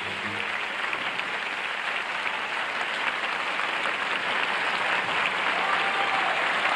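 Large audience applauding, growing slightly louder.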